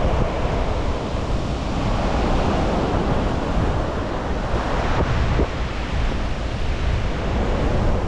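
Sea surf washing onto a sandy beach, with wind buffeting the microphone in a steady rumble.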